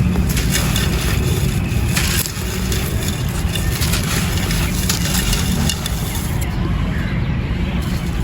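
Brittle white clay pot pieces being crushed and crumbled, a run of crisp, gritty crunches, over a steady low rumble.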